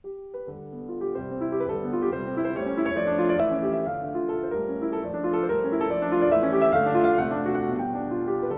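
Background piano music: a steady run of short notes that starts abruptly.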